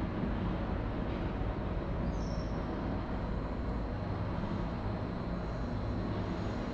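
Steady low rumble and hiss of outdoor background noise around the railway, with a short faint high tone about two seconds in.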